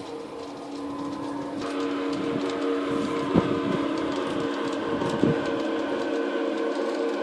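LGB garden-railway model of a Rhaetian Railway Ge 4/4 III electric locomotive running with its Dietz sound module, giving a steady two-note electric hum that grows louder about a second and a half in. Two sharp clicks come near the middle.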